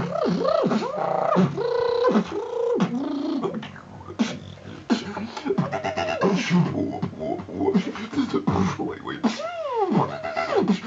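Freestyle beatboxing: mouth-made drum hits and clicks woven with sweeping vocal pitch glides that rise and fall, briefly quieter about four seconds in.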